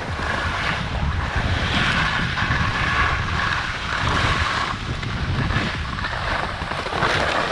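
Skis sliding and scraping over snow on a downhill run, a hiss that swells and fades, with wind buffeting the microphone as a low rumble.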